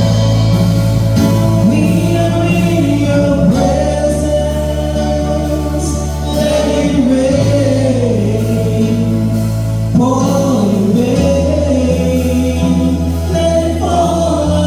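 Gospel singing with instrumental accompaniment. Held low bass notes change every few seconds under a wavering sung melody.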